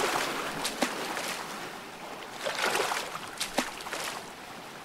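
Sea-water sound effect: splashing, sloshing water that swells and fades twice, with a few short sharp ticks.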